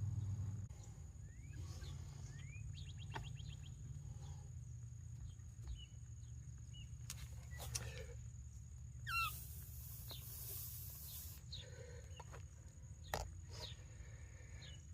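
Faint bird chirps over a low steady hum, with a few sharp clicks and a brief hiss a little past the middle.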